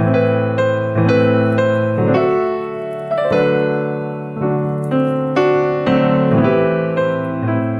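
Background piano music: a melody of struck notes, roughly two a second, each dying away over held lower notes.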